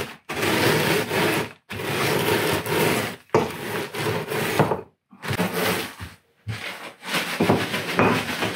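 A wooden rolling pin rolled back and forth over a gallon plastic zip-top bag of Funyuns onion-flavoured corn rings on a wooden counter, crushing them into fine crumbs for fish breading. The rubbing, crushing noise comes in about five long strokes of a second or so each, with short pauses between them.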